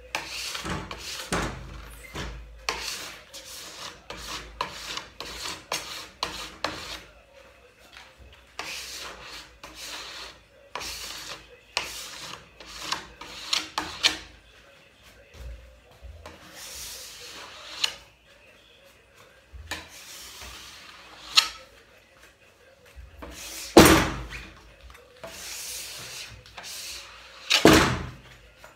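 Metal scraper drawn in repeated strokes along a snowboard base, scraping off leftover old wax. The strokes come quickly in the first half and are slower and longer later, with a couple of louder knocks near the end.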